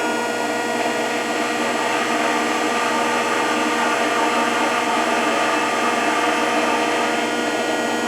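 Rockford 36-inch hydraulic open-side planer running under power, with its rotary phase converters spooled up. It makes a steady mechanical whir with several steady tones and no knocks. This is the machine's first run after 30 years in cold storage.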